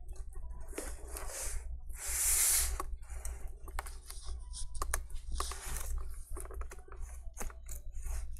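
Thin metal pry tool scraping and clicking along the edge of a laptop's plastic screen bezel as it is worked under the bezel to cut through and separate the adhesive tape. Many small clicks and ticks with three longer scraping rasps, the loudest about two seconds in, over a steady low hum.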